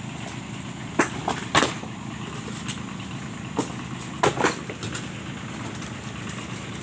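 Small lorry's engine idling steadily, with several sharp knocks of rocks being handled on its metal cargo bed, about a second in and again around four to five seconds in.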